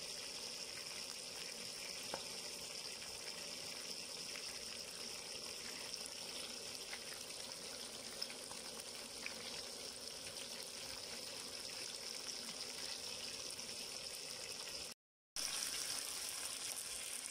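Hot oil sizzling steadily around two whole tilapia shallow-frying in a pan, with scattered small crackles. It cuts out briefly near the end and comes back slightly louder.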